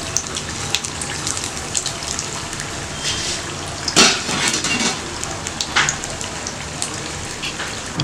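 Batter-coated baby corn bajji deep-frying in hot oil in a steel kadai: a steady sizzle with scattered crackles and pops, one louder about halfway through. The fritters are turning golden and are nearly done.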